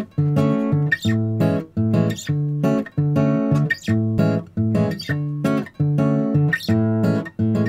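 Background music: a bossa nova track on acoustic guitar, with short chords in a steady rhythm about twice a second over a bass line.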